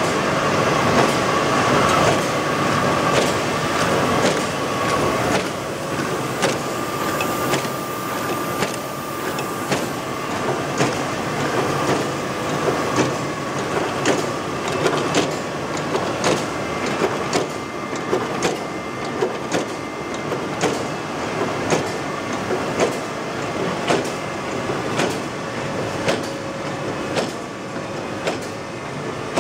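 Gallus T180S screen-printing label press running: a steady mechanical clatter with a sharp clack repeating about once a second as the press cycles.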